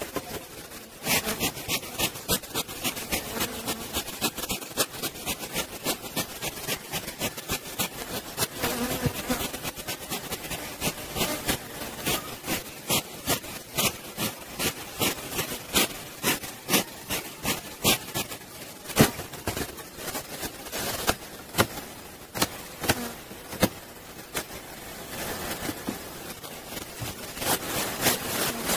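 Honeybees buzzing over an opened hive, with a fast, uneven run of sharp clicks and knocks through the first two-thirds that thins out toward the end.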